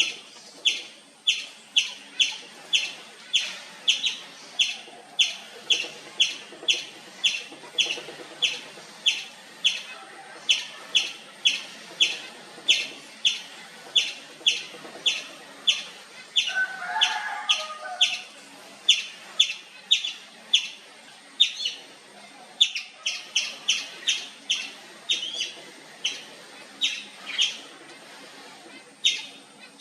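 Indian palm squirrel giving sharp, high-pitched chirps over and over at about two a second. Around the middle a brief lower call cuts in, and the chirps then come a little less evenly.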